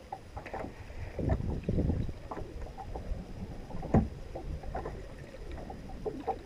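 Water slapping against the side of a small fishing boat, with uneven low rumbling and scattered knocks on the hull, the sharpest knock about four seconds in.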